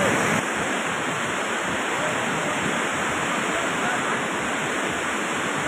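Muddy flash-flood water rushing through a boulder-strewn river bed, a steady, even rushing noise.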